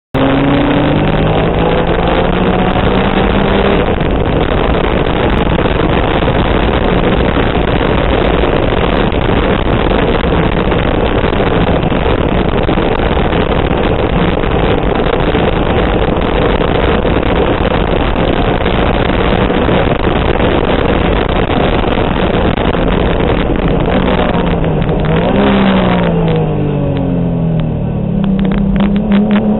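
Turbocharged Honda NSX's V6 engine at full throttle, heard from inside the car's cockpit: the note climbs in the first few seconds, then holds steady at high speed. Near the end the throttle lifts and the engine note falls and rises again in steps as the car slows into a turn.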